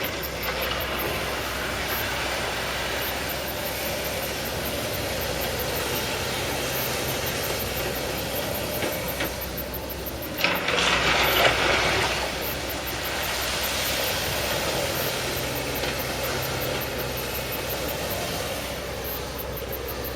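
Excavator's diesel engine running steadily as the machine works, with a louder rush of noise about halfway through lasting a second or two.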